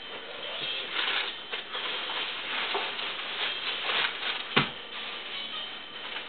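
Crumpled newspaper packing rustling and crackling as it is handled, with one sharp knock about four and a half seconds in.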